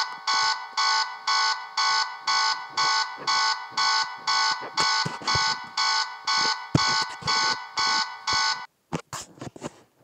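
Fan-made emergency alert system (EAS) alarm: a loud repeating beep, about two pulses a second, each pulse a chord of several steady tones. It cuts off near the end, followed by a few short clicks.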